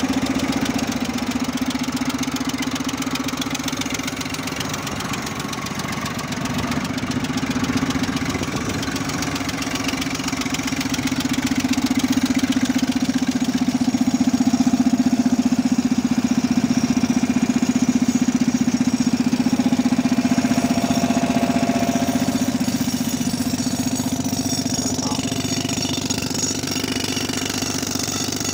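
New Holland 3230 tractor's diesel engine running steadily while driving an air compressor, a constant mechanical drone.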